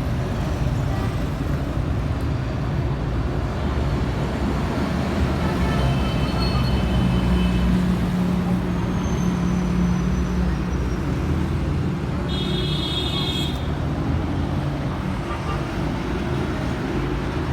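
Steady road-traffic rumble. Two short high-pitched tonal sounds stand out, one about six seconds in and a stronger one about twelve seconds in.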